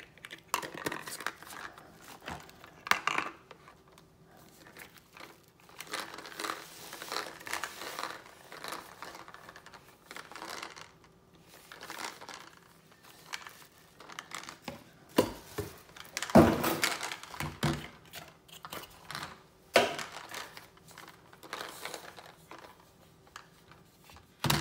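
Hands handling a plastic water bottle and its stackable plastic pill-box compartments: irregular rustling and crinkling with small plastic clicks and knocks. The loudest is a heavier knock about two-thirds of the way through.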